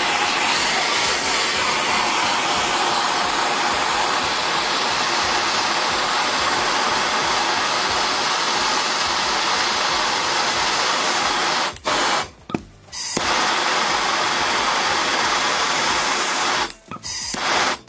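Large propane torch burning with a loud, steady hiss as its flame heats a copper pipe joint for soldering. The hiss drops out briefly twice in the last third.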